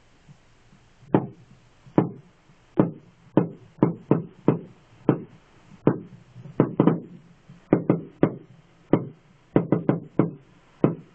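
Fireworks firing a rapid string of shots: about twenty sharp bangs, irregularly spaced at roughly two a second, the first about a second in, each trailing off briefly.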